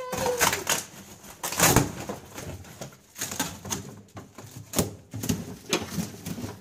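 Cardboard box and plastic packaging rustling and crackling in irregular knocks as a child's bicycle is unpacked. A child's high-pitched squeal trails off in the first half second.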